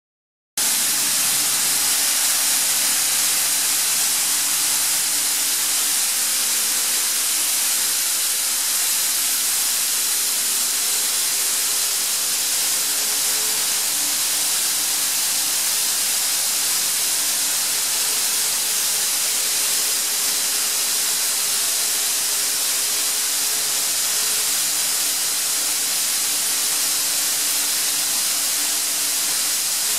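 Atlas Copco GA 315 VSD FF oil-injected rotary screw air compressor running under load at about 7 bar outlet pressure: a steady, loud rushing hiss, with a few faint hum tones underneath that shift slightly in pitch.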